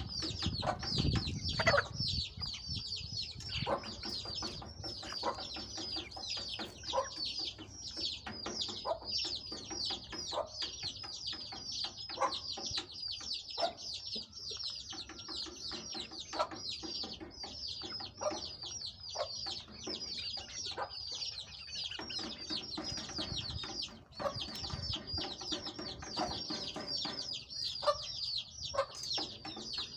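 A flock of chickens peeping and clucking: a steady stream of short, high, falling peeps, several a second, with lower clucks scattered among them.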